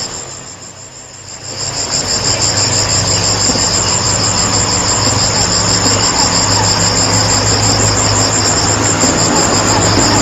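Insects trilling steadily in two high, finely pulsing tones, with a low engine-like drone swelling about two seconds in and running on underneath.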